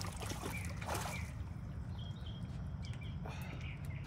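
Birds chirping briefly several times over a steady low outdoor rumble.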